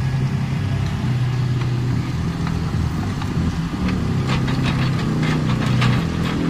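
Diesel engines of a Doosan wheeled excavator and a sugar-beet cleaner-loader running steadily. From about four seconds in, a quick run of clattering knocks as beets tumble from the excavator's grab into the loader's hopper.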